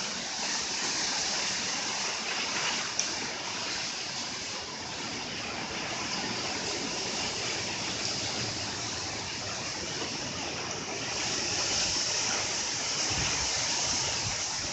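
Strong typhoon wind and rain making a steady rushing hiss that swells about eleven seconds in. A brief gust buffets the microphone near the end.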